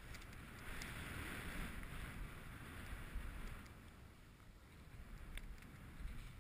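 Snowboard sliding through deep snow: a hiss of the board in the snow that swells about a second in and eases after the middle, over a steady low rumble of wind on the microphone, with a few light clicks.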